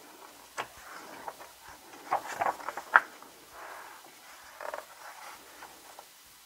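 Thick pages of a hardcover photobook being turned by hand: soft paper rustling and sliding, with a quick run of sharp taps and page flaps about two to three seconds in, and another smaller one near the end.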